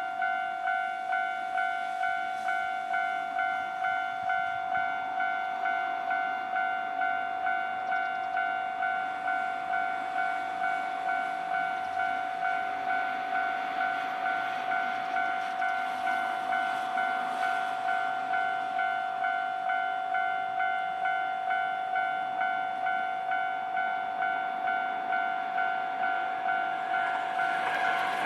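Japanese railway level-crossing alarm ringing its electronic bell steadily, about two strokes a second, warning that a train is coming. At the very end the noise of the train reaching the crossing swells in.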